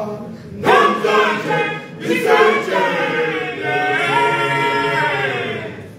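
Men's choir singing unaccompanied in harmony, in short phrases that break off about half a second and two seconds in, then a long held chord that fades out just before the end.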